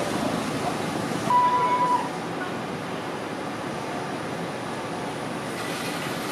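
Steady running hum and street noise around a Hiroshima Electric Railway 1000-series tram standing at the stop. About a second in, a single steady electronic beep sounds for under a second.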